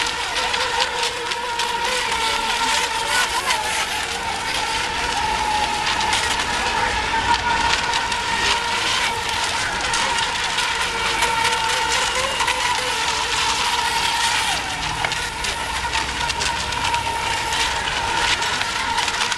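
Electric RC racing boats running on the course: a steady high motor whine that wavers slightly in pitch, over a continuous crackling hiss.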